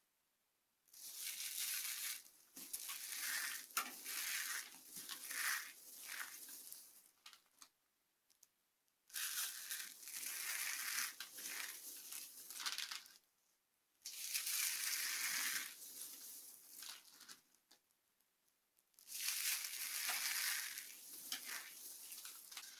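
Dry soap being crushed and crumbling with a dense crunching crackle. It comes in four bouts of several seconds each, with short silent pauses between.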